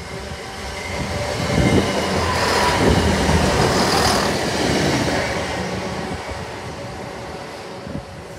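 A Networker Turbo diesel multiple unit passing through the station without stopping: its engines and its wheels on the rails grow louder to a peak about three to four seconds in, then fade as it moves away.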